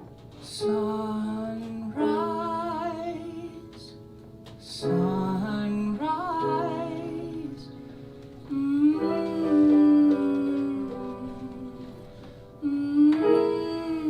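Slow song intro: chords struck about five times, each left to ring and die away, under a voice holding long wordless notes with vibrato.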